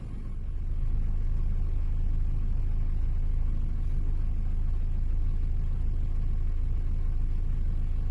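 Steady low rumble of a car heard from inside its cabin while it stands in traffic with the engine idling. The rumble fades in over the first second and then holds even.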